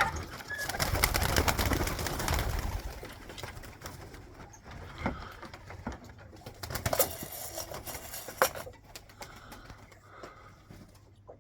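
Pigeons cooing, with a burst of rustling noise in the first few seconds and a few sharp clicks later on.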